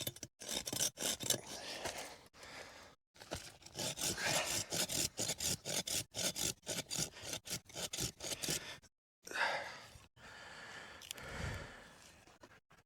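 A blade sawing back and forth through a wooden stick, in rapid scraping strokes, in several runs with brief breaks.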